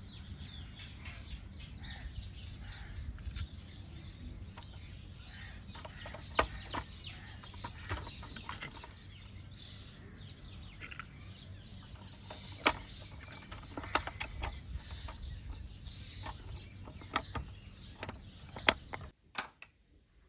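Outdoor ambience: small birds chirping over a steady low rumble, with scattered sharp taps, the loudest about six, thirteen and nineteen seconds in.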